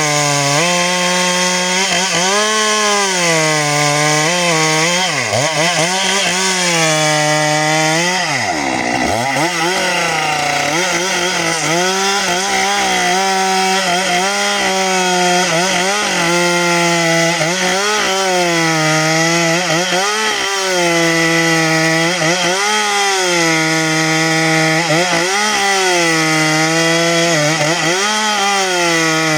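Stihl MS 462 two-stroke chainsaw running at high revs through a cut in a log. Its pitch sags under load and recovers again and again, dipping deepest about nine seconds in.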